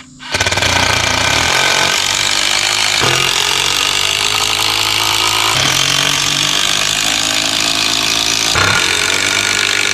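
Cordless drill driving screws into wooden boards, running almost continuously. Its motor pitch shifts three times, about every three seconds, as each new screw starts.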